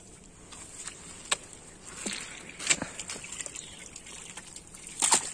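Hands groping in mud and shallow muddy water for fish: wet squelching and sloshing, with a few sharp slaps or clicks, the loudest a little after two and a half seconds and again just before the end.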